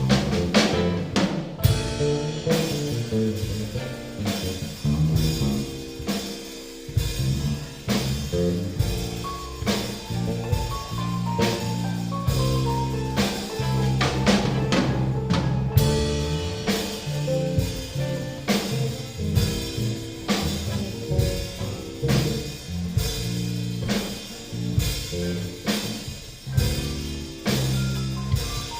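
Rock band playing live: drum kit keeping a steady beat under bass and guitar, with repeated descending runs of notes in the melody.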